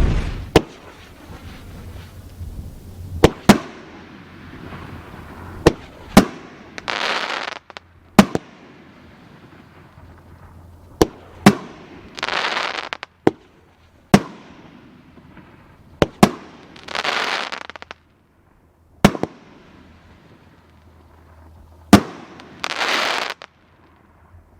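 A Future Warrior 500-gram aerial firework cake firing its shots: sharp bursts every one to three seconds, some in quick pairs, with about a second of hissing, crackling glitter after several of them.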